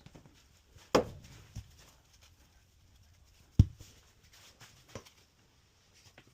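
Scattered knocks and clicks of hand work, with two sharp loud knocks, one about a second in and one a little past the middle, and a few lighter taps between.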